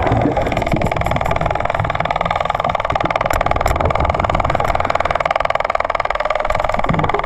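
Steady motor drone with a fast, even pulsing, heard underwater, as from a boat's engine running nearby. A few faint clicks come through a little past the middle.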